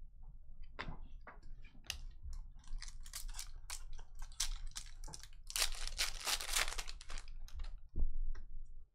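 Foil wrapper of a trading-card pack being torn open and crinkled, amid the clicks and snaps of cards being handled, with a denser stretch of crinkling about six seconds in.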